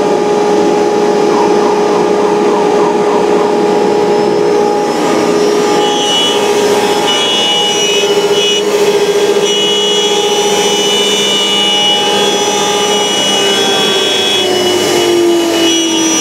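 ShopBot CNC router's spindle running with a quarter-inch straight bit, routing a profile groove into a sheet: a steady, loud whine over the cutting noise. Near the end the whine falls in pitch.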